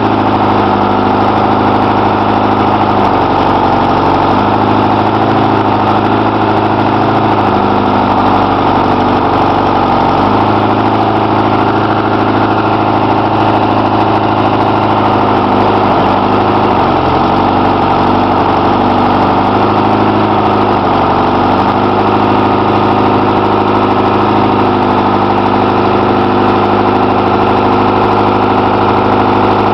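Engine of a rubber-tyred logging machine with a hydraulic grapple boom, running steadily near idle while the boom works a load of rocks. Its note dips briefly and recovers several times as the machine takes load.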